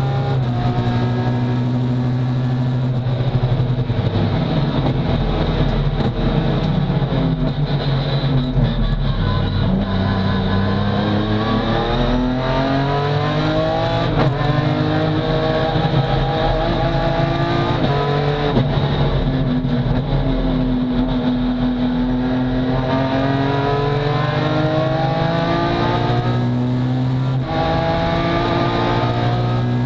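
BMW S54 inline-six in an E36 race car with a sequential gearbox, heard from inside the stripped, caged cabin: it runs hard, revs dropping as it slows for a corner and then climbing in steps through quick gear changes as it accelerates out.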